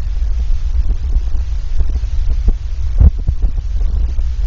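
Muffled low rumble of water moving against a camera held underwater, with small scattered knocks and one louder thump about three seconds in.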